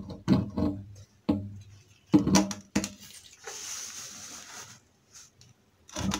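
Handling noise of jet pump parts being fitted by hand: a series of short knocks and clatters, with a brief rustling scrape about halfway through.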